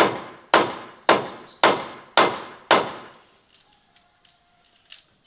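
Hammer blows on a wooden beam: six evenly spaced strikes, about two a second, each ringing briefly, stopping about three seconds in.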